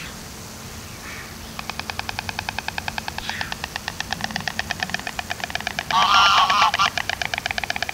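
White storks clattering their bills: a fast, even rattle of about ten clacks a second that pauses at the start and picks up again about a second and a half in. About six seconds in, a goose gives a loud burst of honking over the rattle.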